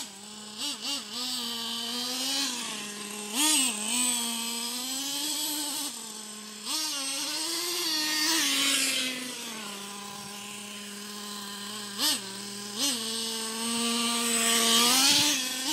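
Traxxas T-Maxx 3.3's two-stroke nitro engine running, its pitch jumping up in several quick revs and dropping back to a steady lower drone between them.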